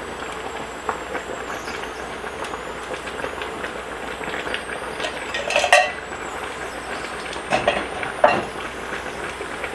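A stainless pot of canned-mackerel and radish stew boiling with a steady bubbling hiss, broken by a few metal clinks and knocks from the emptied can against the pot, the loudest about six seconds in.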